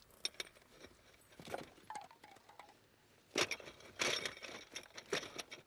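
Rustling and scuffling of a brief struggle as a cloth is pressed over a woman's nose and mouth, with small clicks and clinks, and louder, sharper rustling bursts about three and a half and four seconds in.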